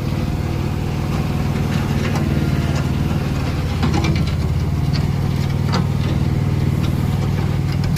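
Komatsu SK04 loader's diesel engine idling steadily, with a few faint clicks over the low hum.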